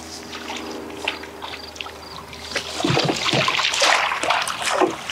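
Hooked fish splashing and thrashing at the water's surface as it is brought alongside the boat and netted, the splashing getting louder about halfway through.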